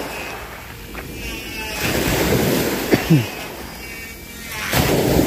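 Small waves washing onto the beach, the surf hiss swelling twice, about two seconds in and again near the end.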